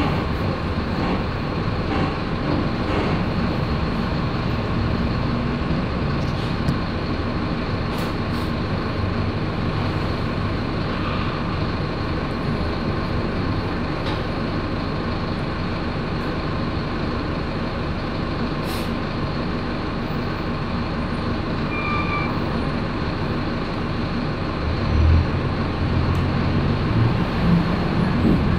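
Steady engine and road noise of a motor vehicle heard from inside it, with the low rumble swelling about 25 seconds in.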